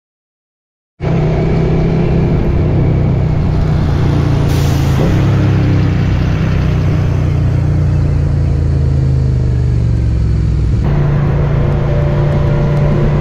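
Suzuki SV650X motorcycle's V-twin engine with an aftermarket Scorpion exhaust, running steadily while riding, over wind noise. The sound cuts in abruptly about a second in after silence, and its tone shifts near the end.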